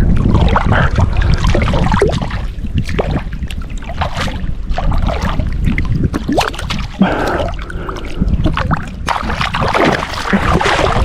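Wind rumbling on the microphone over flowing river water, with many small clicks and splashes throughout.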